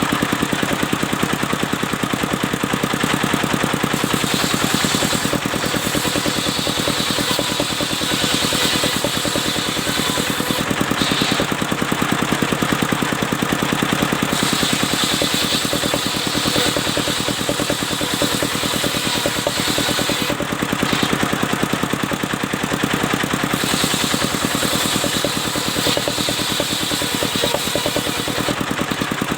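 Engine-driven mobile circular saw running steadily while slicing albasia logs, the engine's even pulse constant underneath. A high hiss from the blade in the wood rises for three long stretches of about five or six seconds each and drops away between them.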